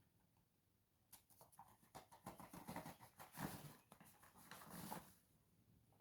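Faint rustling and scraping with a few small clicks as wheat flour is measured out with a cup, starting about a second in and stopping near the end.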